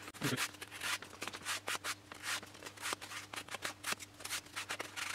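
Sandpaper rubbed by hand along the trailing edge of a 3 mm balsa elevator to round it off: short scratchy strokes, about three a second.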